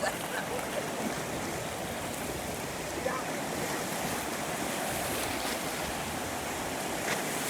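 Ocean surf washing in the shallows, a steady rush of waves.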